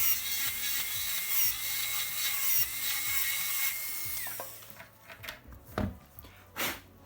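Dental handpiece with a fissure bur grinding into a molar while cutting a cavity preparation: a steady whine with a gritty cutting noise, which winds down in pitch and stops about four seconds in. A few soft knocks follow.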